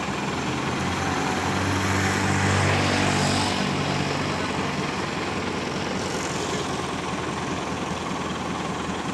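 Caterpillar 428C backhoe loader's four-cylinder diesel engine running, its note rising and growing louder about two seconds in, then easing back to a steadier run.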